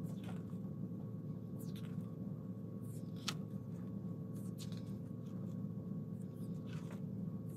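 Pages of a spiral-bound desk calendar being flipped over by hand: several soft paper swishes and rustles, over a steady low hum.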